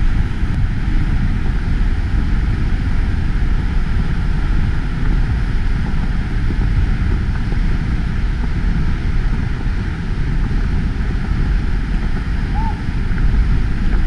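Seljalandsfoss waterfall plunging into its pool close by: a steady, heavy rush of falling water, loudest in the low end, with wind buffeting the microphone.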